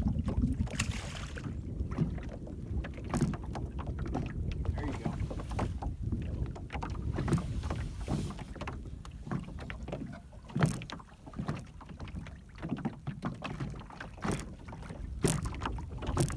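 Wind buffeting the microphone with a steady low rumble, a short splash about a second in as a channel catfish is let go over the side of the boat, and scattered knocks on the boat.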